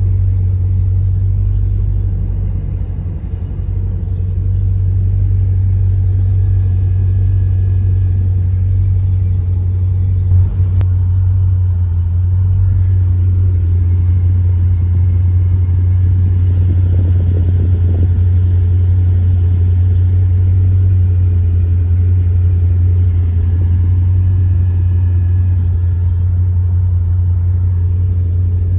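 A 1976 Corvette Stingray's 350 small-block V8 idling with a low, steady rumble, heard from inside the cabin. The engine is fully warmed up, with water temperature at about 200°.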